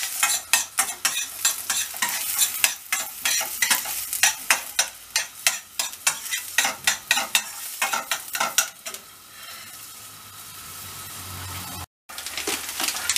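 Chopped green peppers sizzling in oil in a stainless-steel frying pan while a metal spoon stirs them, clicking and scraping rapidly against the pan. About nine seconds in the stirring stops and only a steady sizzle remains, and the sound cuts out for a moment near the end.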